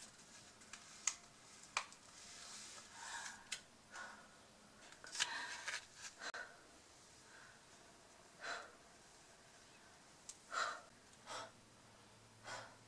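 A woman's short, faint breaths and gasps, a few seconds apart, with a few soft clicks and rustles.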